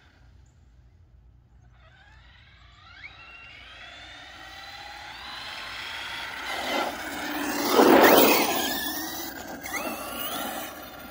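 ARRMA Fire Team brushless electric RC car driving fast along asphalt toward and past, its motor whine gliding up and down in pitch with the throttle. It grows louder as it comes near and is loudest about eight seconds in, with tyre noise, then drops away.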